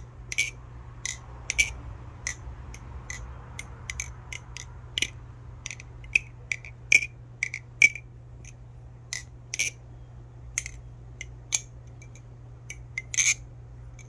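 Balisong being flipped, its pivots lubricated with a very thick oil: a string of sharp metal clicks, irregularly spaced at about one or two a second, as the handles swing around and strike.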